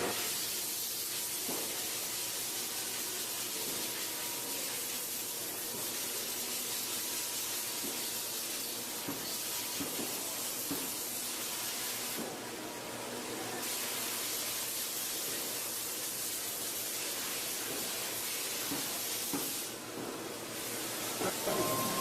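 Steady hiss with a few light knocks; the hiss briefly drops away twice, about halfway through and near the end.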